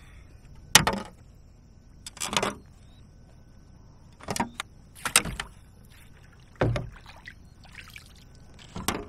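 Handling knocks of a plastic fish-measuring board and a largemouth bass against a kayak: six short bumps and rattles a second or two apart, the sharpest about a second in.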